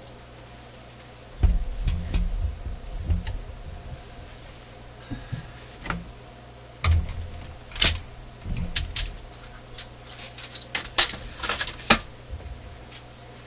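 Tools and parts being handled on an electronics workbench: scattered sharp clicks and knocks, with a cluster of low thumps about a second and a half in, over a steady low hum.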